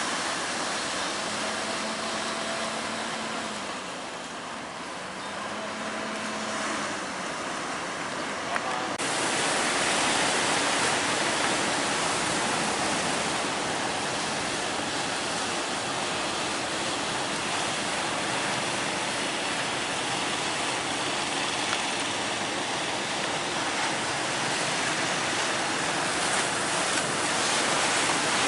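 Large sea waves breaking and surging, a steady rushing noise with wind on the microphone; about nine seconds in it turns abruptly louder and brighter.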